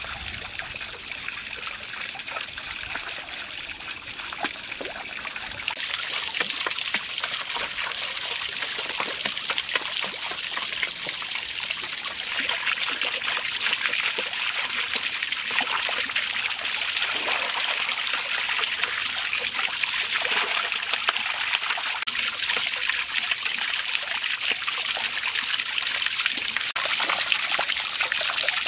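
Water pouring from a bamboo pipe and splashing onto the paddles of a small bamboo water wheel and into a shallow pond: a steady trickling, splashing flow that grows a little louder partway through.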